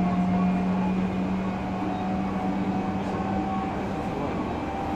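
Odakyu 3000 series electric train with Mitsubishi IGBT-VVVF control and fully enclosed MB-5123 traction motors, heard running from inside the car: steady wheel-and-rail rumble with a thin whine that slowly rises in pitch. A low hum underneath stops about three and a half seconds in.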